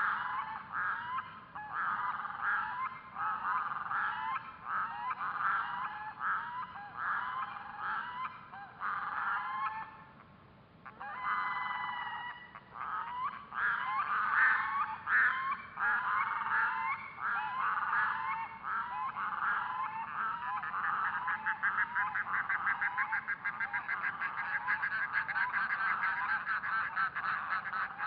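Red-throated loon calling over and over, several calls a second, with a short break about ten seconds in and a faster, more even run of calls near the end.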